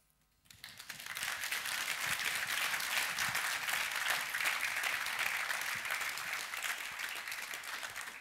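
Audience applauding. The clapping starts about half a second in, builds quickly and thins out near the end.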